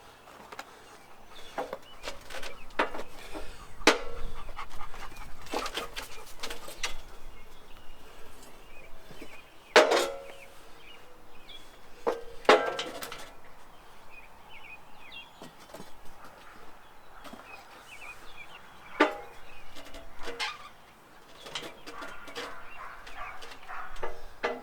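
Scattered knocks and clanks from rotating a large walnut log with a come-along on the sawmill bed. The loudest knocks come about ten and twelve and a half seconds in.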